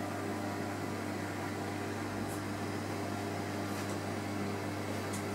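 Steady low electrical hum with a faint hiss from reef aquarium pumps running, with a few faint high ticks.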